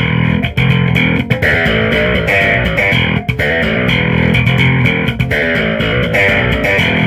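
Custom electric bass guitar played slap-style on its humbucker pickup alone, heard through a bass cabinet: a continuous run of punchy notes with sharp percussive clicks from the slapped and popped strings.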